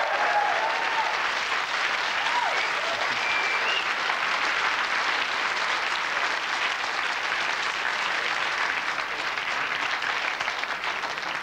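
Studio audience applauding steadily, with a few cheers rising above the clapping in the first few seconds.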